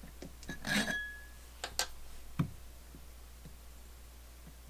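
Metal parts of a Dumore drill press motor clinking as it is handled and taken apart. A clink with a short ringing note comes about half a second in, then a few light clicks and taps.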